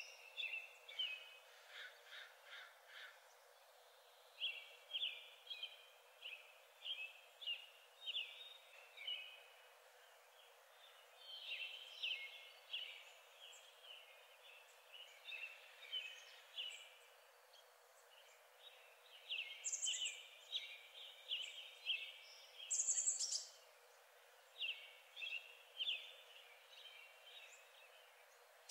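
Birdsong: runs of short, quick, high chirps in phrases of a few seconds, with short pauses between them, over a faint outdoor hiss.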